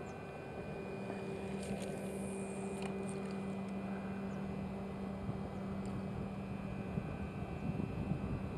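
A distant engine droning steadily, a low hum with a few fainter higher tones held level throughout, and a few faint ticks.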